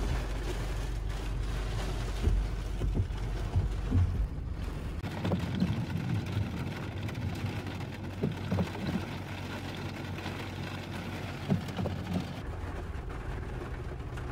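Heavy rain on a car, heard from inside the cabin, at first over the car's engine and road noise while it drives. About five seconds in the road rumble drops away, leaving rain falling on the stopped car's roof and windshield, with scattered light knocks.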